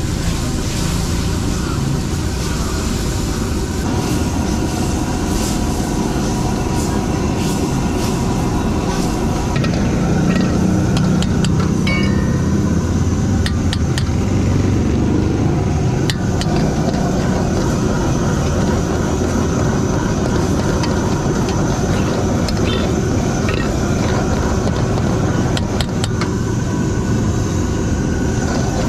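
Steady roar of a gas wok burner under a wok of noodles sizzling in oil and sauce. Sharp clinks of a metal ladle against the wok come now and then.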